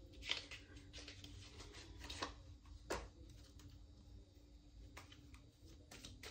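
A small deck of cards being shuffled by hand: soft, scattered sliding and tapping of the cards, with a few sharper clicks, over a faint steady hum.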